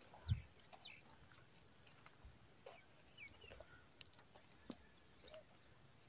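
Faint outdoor ambience: a low thump just after the start, then scattered small clicks and a few short high chirps.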